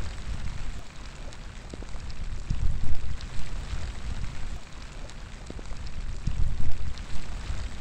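Steady outdoor rain, a dense hiss with scattered sharp drop ticks. Gusts of wind rumble and swell twice, about two and a half and six and a half seconds in.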